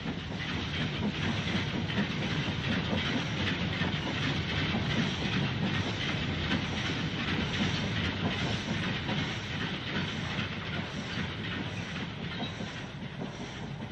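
A long loose-coupled goods train of four-wheel coal wagons rolling past behind a steam locomotive, its wheels giving a steady clatter on the rails that eases slightly near the end.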